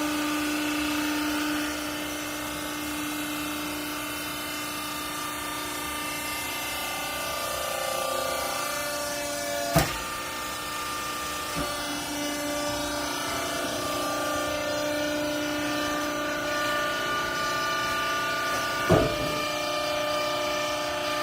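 Baling press running: a steady motor-and-pump whine made of several held tones that shift a little in pitch, with two sharp clunks, about ten seconds in and near the end.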